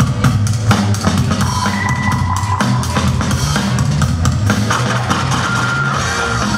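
Loud music with a driving drum-kit beat and heavy bass.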